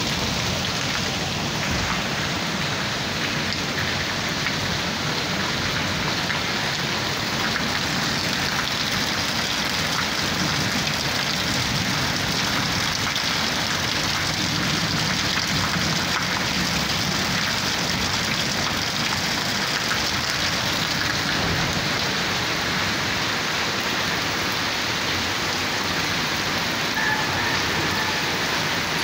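Monsoon rain falling steadily on concrete ground and rooftops, an even, unbroken hiss.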